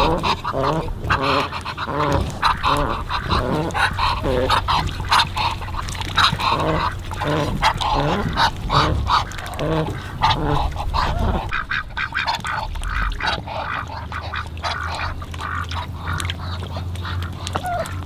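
Domestic ducks quacking in a quick run of short, repeated calls that thin out about two-thirds of the way through, over a low steady hum.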